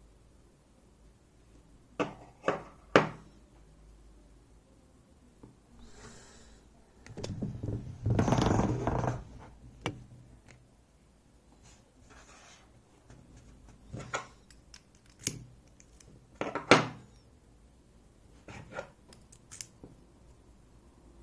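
Sharp metal clicks and scraping from tools working a picked EVVA 3KS lock cylinder whose core is stuck and will not slide out; three quick clicks early, a longer scraping rattle near the middle, then scattered clicks.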